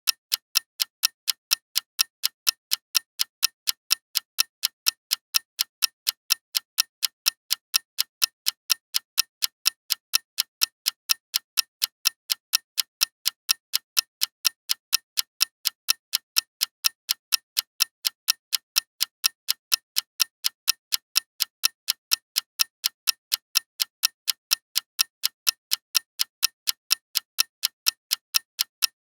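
Clock ticking in a steady, even rhythm of sharp, light clicks that carry little low end.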